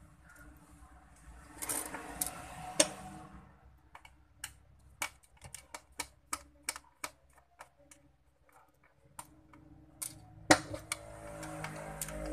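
Small screwdriver prying at the plastic shell and snap clips of a gaming headset ear cup: scraping of metal on plastic twice, with a run of sharp plastic clicks in between.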